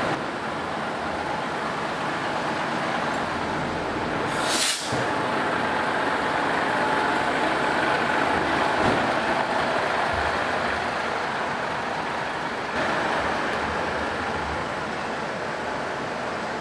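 Diesel engine of a crane lorry running at idle close by, a steady rumble and hum, with a short sharp hiss of air about four and a half seconds in.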